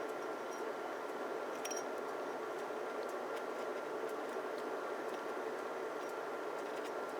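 A house furnace running with a steady hum, a faint steady tone riding on it. A few faint ticks are heard over it.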